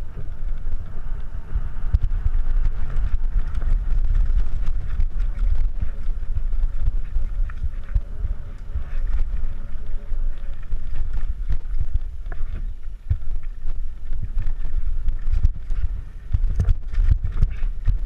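Mountain bike descending a dirt singletrack at speed: a steady wind rumble on the microphone, with the tyres rolling over dirt and gravel and the bike rattling over bumps. The knocks and rattles get sharper and more frequent near the end.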